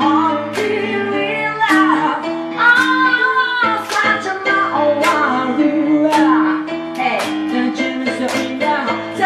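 A woman singing live into a microphone, her voice sliding up and down in pitch, over steady chords from a keyboard.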